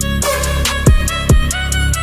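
Background music with a steady beat: deep bass drum hits about twice a second over held bass notes.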